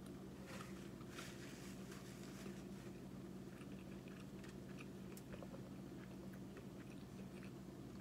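A person chewing a mouthful of Whopper burger: faint, irregular small clicks, over a steady low hum.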